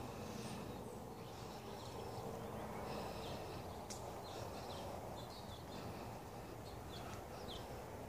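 Birds chirping in short, scattered high calls over a steady low outdoor rumble.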